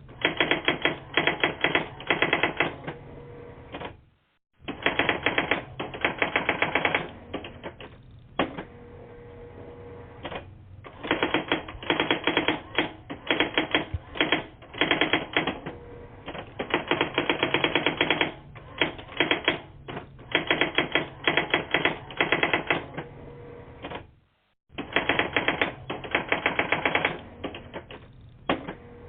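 Rapid clicking in bursts of one to three seconds, like typewriter keys being struck, which the uploader takes for a typewriter. Heard thin through a telephone voicemail line, with two brief total dropouts, about four seconds in and about twenty-four seconds in.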